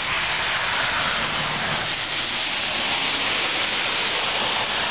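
Steady, even hiss of a snowstorm: falling snow and wind.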